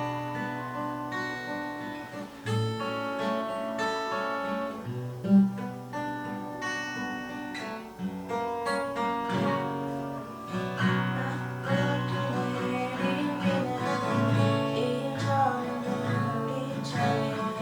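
Acoustic guitar playing a slow tune, single notes and chords ringing and changing about once a second. From about halfway through, a voice sings along.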